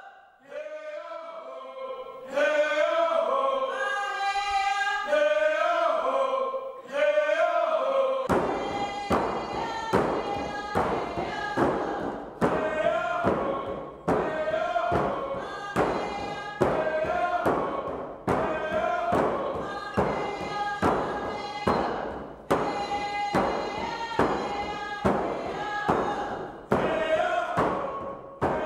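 Several voices singing a Tsimshian song together. About eight seconds in, hand drums enter and keep a steady beat under the singing.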